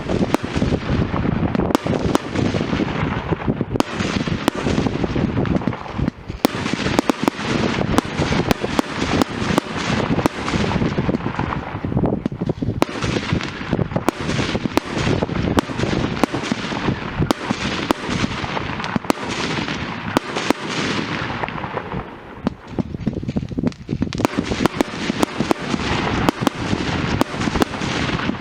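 Fireworks going off without pause: dense crackling packed with many sharp reports, easing briefly a couple of times before building again.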